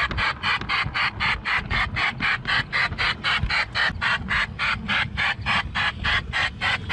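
Chuffing of an LGB garden-railway model steam locomotive in a quick, even rhythm, about four to five chuffs a second.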